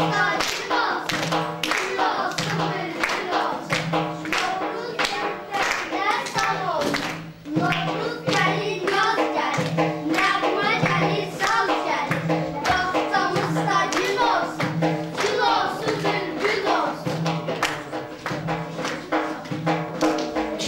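Lively dance music with a steady, repeating beat and a wavering melody line, with hands clapping along in time. The music drops away briefly about seven seconds in, then picks up again.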